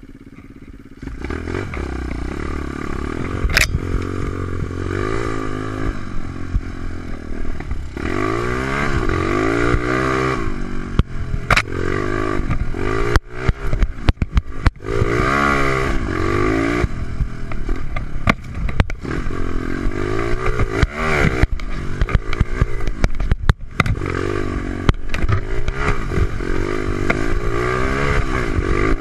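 125cc Stomp pit bike's single-cylinder four-stroke engine, running a big Keihin race carburettor and a big-bore exhaust, revving up and dropping back over and over as it is ridden along a rough dirt track. Clattering knocks from the bike come through the engine note throughout.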